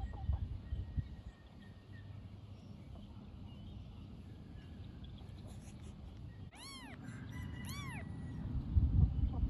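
Newborn kittens mewing: two short, high cries about a second apart in the latter half, each rising and then falling in pitch. Low rumbling noise underneath grows louder near the end.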